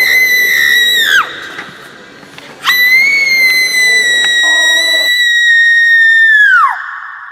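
Woman screaming sound effect. A long, high-pitched scream falls in pitch as it breaks off about a second in. A second scream starts a couple of seconds later, is held for about four seconds, and also ends in a falling pitch.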